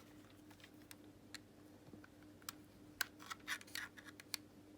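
Faint scattered plastic clicks and scrapes as a pry tool works around the seam of an Xbox One controller's shell to separate the casing, with a quick run of clicks in the second half, over a faint steady hum.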